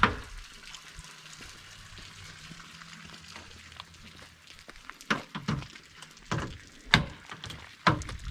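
Rustling and a handful of sharp knocks from handling the rooftop tent during takedown, clustered in the last three seconds over a faint steady hiss.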